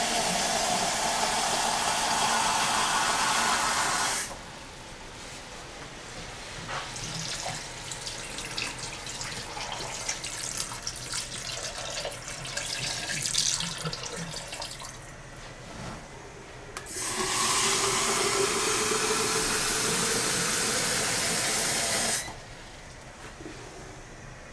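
Kitchen tap running into a glass carafe, shut off about four seconds in. Then quieter splashing as the water is poured into a pot of sauce, and the tap runs again for about five seconds, its note rising slowly as the carafe fills.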